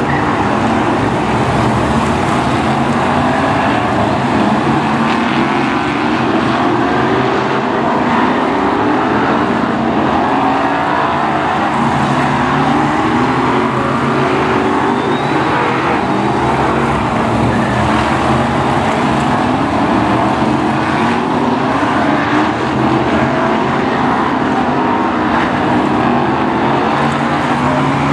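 A pack of Brisca F1 stock cars' V8 engines racing around a tarmac oval, a loud, unbroken din with engines repeatedly revving up as cars accelerate out of the bends.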